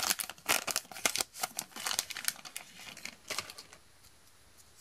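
Magic: The Gathering booster pack's foil wrapper crinkling and rustling in the hands as the cards are pulled out, dying away about three and a half seconds in.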